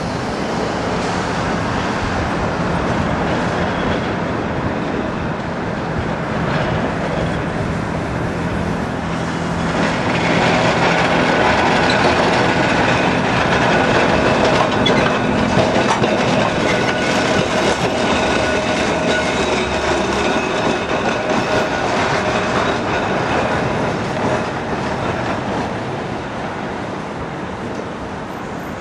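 Blackpool double-deck electric tram No. 707 running along street track, its wheels rumbling and clattering over the rails. It grows louder about ten seconds in as it passes close, with a thin steady whine, then fades as it draws away.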